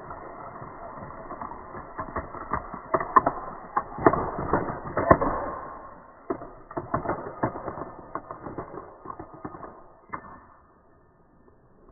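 A rapid, uneven run of clicks and knocks from small hard objects being handled, densest and loudest in the middle and thinning out near the end.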